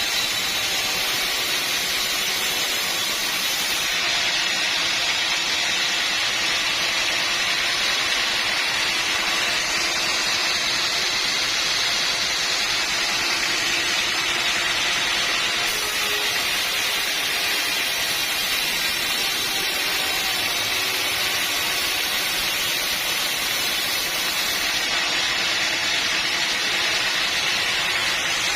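Sawmill machinery running steadily: a constant hissing noise with no breaks or changes in pitch.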